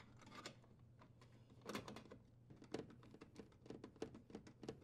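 Faint, irregular small clicks and light metal taps as the dishwasher's sheet-metal junction box cover is fitted and its screw is driven in with a nut driver.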